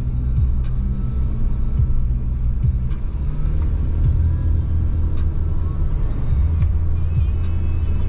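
Car driving along a road: a steady low engine and road rumble, with faint scattered clicks.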